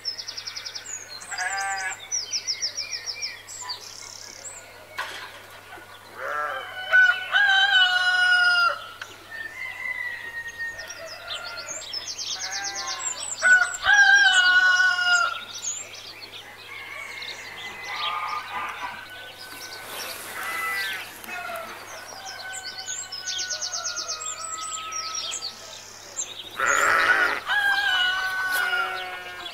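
A rooster crowing twice in long calls, with small birds chirping in rapid high trills throughout and another loud animal call near the end.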